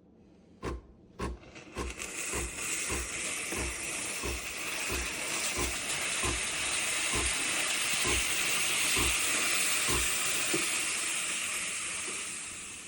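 Espresso machine steam wand hissing steadily, with the machine's pump thumping about twice a second underneath; the hiss builds over the first couple of seconds and fades out near the end.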